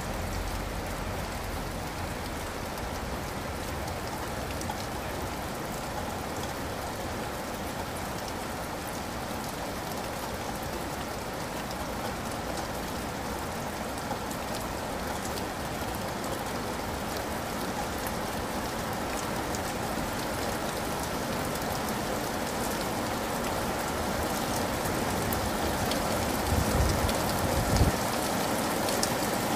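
Steady rain falling: an even hiss with scattered drop ticks, a little louder near the end, with a few low thumps shortly before the end.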